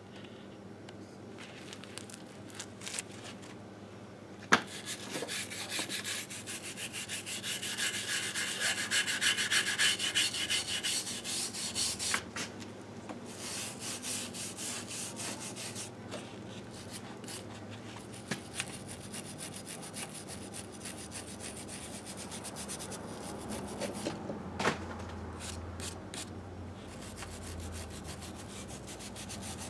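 Shop rag scrubbing grime off a 1958 Harley-Davidson Sportster's aluminium engine case: a sharp click about four seconds in, then fast, vigorous rubbing strokes for several seconds, easing into lighter, intermittent wiping.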